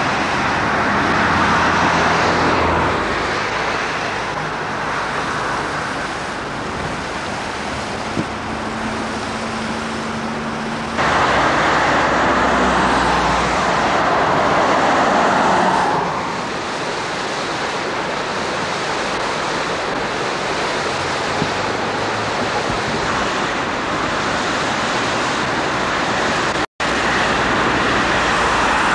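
Steady rush of a shallow river running over stones, with road traffic swelling and fading past now and then. The sound changes abruptly about eleven seconds in and drops out for a moment near the end.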